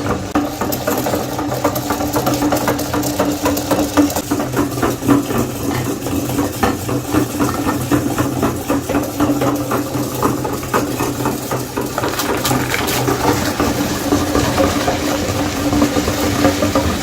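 Electric meat grinder running steadily with a hum and constant fine crackling as food is pushed through it.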